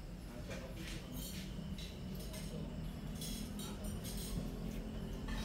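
Workshop background: a steady low hum with scattered light clinks and taps, thickest in the middle seconds.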